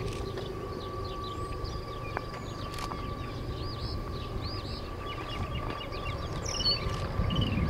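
Norfolk Southern freight train running by with a steady low rumble and a faint steady whine. Repeated high chirping calls sound over it, more often in the second half.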